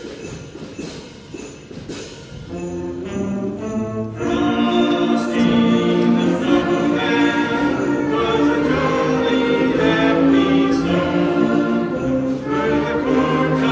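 A school concert band playing a Christmas tune about a snowman. Jingle bells tick out a steady beat at first, the band comes in after about two seconds, and it gets fuller and louder about four seconds in.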